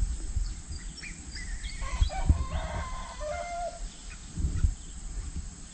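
A rooster crowing: one drawn-out call of several notes about two seconds in, over low thumps and rumble.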